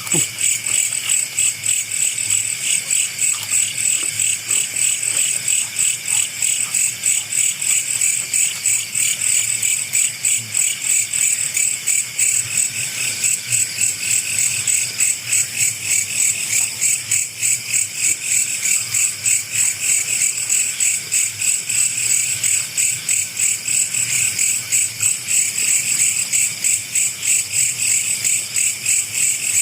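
Night insects, crickets, chirping in a steady chorus with an even, rapid pulse.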